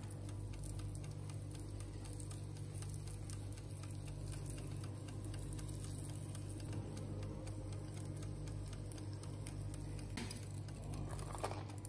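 A low, steady hum with faint ticking running through it, and a brief soft sound near the end.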